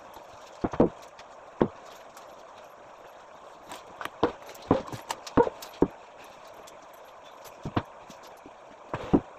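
Irregular knocks and clunks of household things being handled and moved about, in small clusters with a busier run in the middle.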